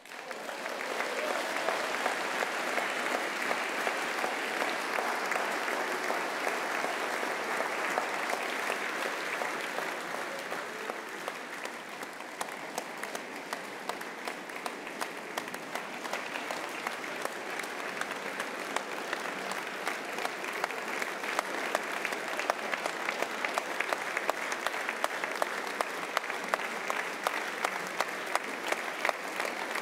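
A large audience applauding after a speech. The applause rises at once, eases slightly about halfway through, then picks up again with sharper individual claps standing out.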